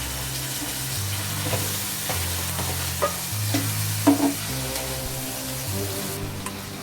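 Food sizzling in hot oil in a cooking pot while being stirred, with a metal utensil knocking against the pot several times, loudest about four seconds in.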